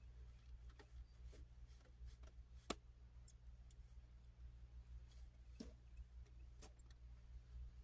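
Near silence: a steady low hum with faint rustles and small clicks of hands gathering and tying long hair into a ponytail, and one sharper click about two and a half seconds in.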